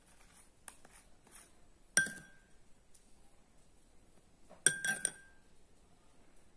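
A metal spoon clinking against a bowl as it scoops up chilli-salt water: one strike about two seconds in, then a quick run of two or three near the end, each ringing briefly.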